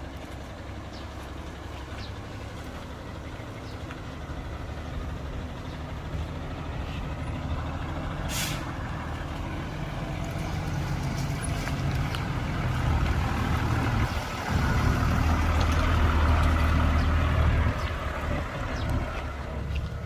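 Diesel dump truck engine running and growing louder as it works, with a short hiss of air brakes about eight seconds in.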